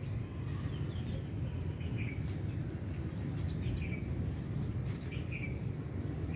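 Small birds chirping, short calls scattered every second or so, over a steady low rumble.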